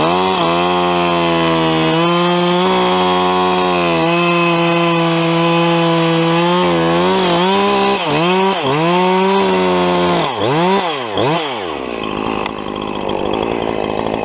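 Chainsaw running at high revs while cutting a branch section in the tree, its engine pitch dipping and climbing back several times about two-thirds of the way through as the throttle is eased and reopened. Near the end the high steady whine drops away to a rougher, lower running.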